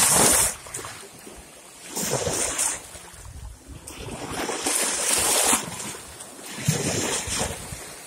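Small waves splashing in over shoreline rocks in the shallows, coming in about four surges with a softer wash between them; the first, right at the start, is the loudest.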